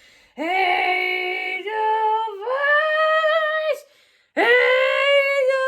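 A voice singing long, wordless held notes in a comic, tuneless way, the puppet puffin's attempt at birdsong. There are about four drawn-out notes rising a little in pitch, with a short pause about four seconds in.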